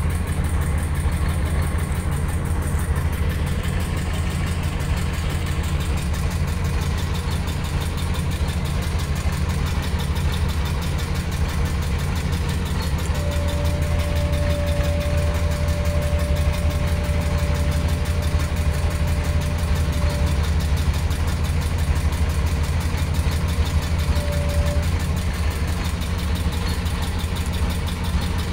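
Boat engine idling steadily, a low even hum. A thin steady whine joins in for several seconds about halfway through, and briefly again later.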